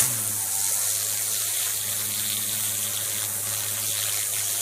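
Greenworks 3000 PSI pressure washer blasting a turbo-nozzle jet of water onto brick: a loud steady hiss of spray with the pump's low hum beneath it. It starts suddenly as the trigger is pulled.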